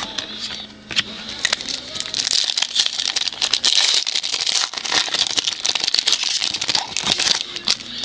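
A trading-card pack wrapper crinkling and cards being handled: a dense run of small crackles and clicks.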